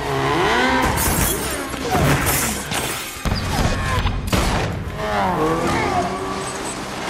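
Action-film sound mix: a motorcycle engine revving with skidding tyres, several sharp gunshots, and a crash with breaking glass as the bike and rider go down, over a music score.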